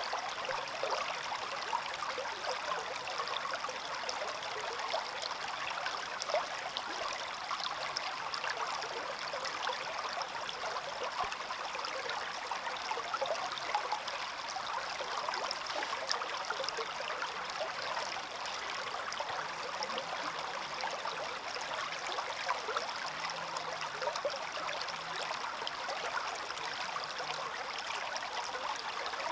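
Small stream flowing steadily, water trickling and splashing over stones.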